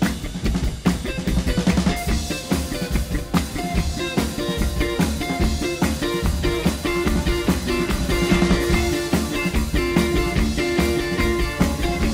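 Live rock band playing an instrumental passage with a busy drum kit (snare and bass drum) driving it. From about eight seconds in, a held note repeats over the band.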